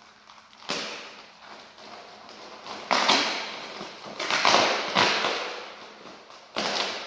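Packaging and parts being handled during unboxing: a run of separate rustles and clunks, each starting sharply and fading over a second or so, about five in all.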